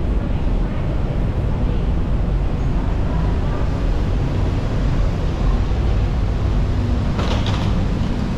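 Steady low rumble inside an airport jet bridge, with a few brief faint clicks about seven seconds in.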